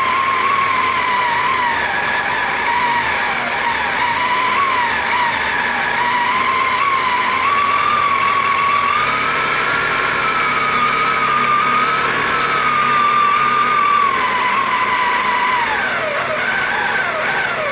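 Salvaged Craftsman circular-saw motor driving a homemade wood lathe, running with a loud, steady whine. Its pitch wavers and dips at times, and drops several times near the end.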